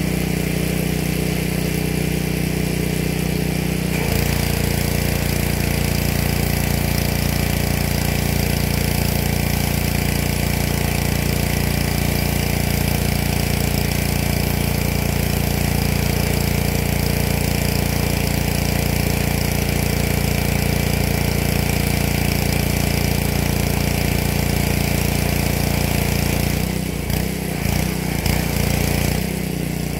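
Pressure washer's small engine running steadily, its note shifting and growing slightly louder about four seconds in, then wavering briefly near the end.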